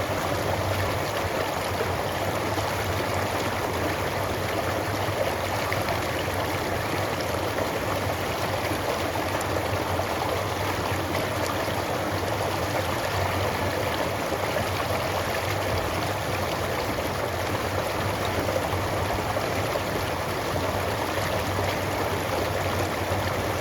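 A small creek bubbling and trickling steadily over smooth stones.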